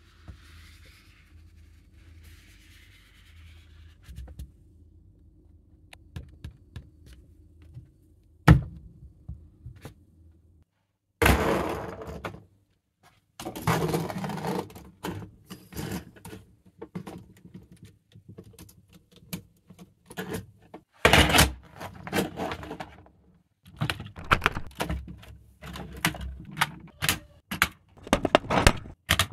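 A paper map rustles faintly over a low steady hum for the first few seconds. From about eight seconds in, LEGO Technic plastic parts click and clatter in quick runs of sharp clicks as beams, pins and frames are handled and pressed together by hand.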